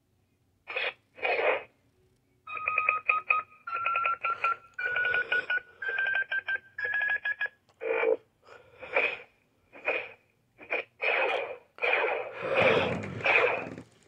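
Power Rangers Cosmic Fury morpher toy playing electronic sound effects through its small built-in speaker: two short blips, then a run of beeping tones stepping up in pitch, then a string of short bursts.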